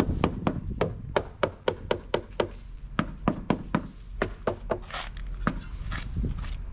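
Small hammer tapping the panels of a pot mold in quick knocks, about four a second, to loosen them from a freshly cast concrete planter. The knocks grow sparser and fainter about five seconds in.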